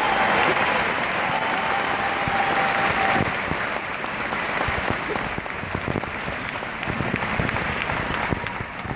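Concert audience applauding at the end of a song, with faint cheering voices in the first few seconds; the applause thins out toward the end.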